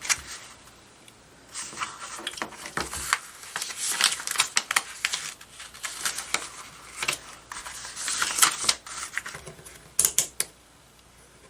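Pages of a paper instruction manual being handled and flipped through: irregular rustling and crackling with small clicks, then two sharper clicks near the end.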